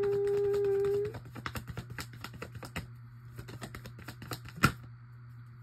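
A hummed note held for about a second, then tarot cards being shuffled and handled: a fast run of light clicks, with one sharper snap near the end.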